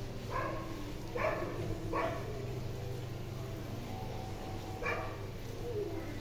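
A dog barking: four short barks, three in quick succession and a fourth a few seconds later.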